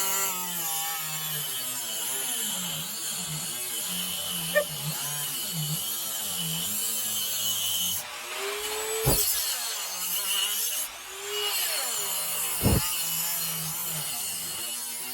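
Small high-speed rotary tool cutting grooves into pine, its motor whine dipping and recovering in pitch as the bit bites into the wood, hard enough to raise smoke. Two short whooshes in the second half.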